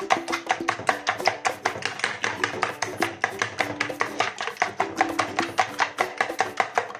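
Metal spoon beating raw eggs in a plastic bowl: rapid, even clicking strokes, about six a second, as the spoon hits the bowl and slaps through the egg, with light background music underneath.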